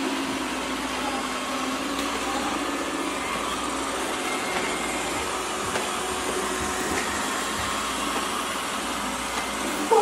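Four robot vacuums, iRobot Roombas among them, running at once over a tile floor covered in water beads, with a steady whir.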